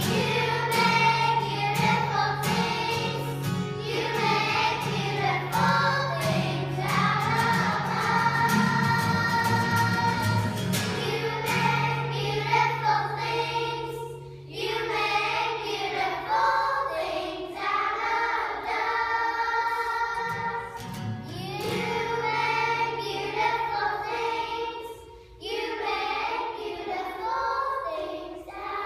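Children's choir singing in unison, accompanied by a strummed acoustic guitar, with short breaks between phrases about halfway through and near the end.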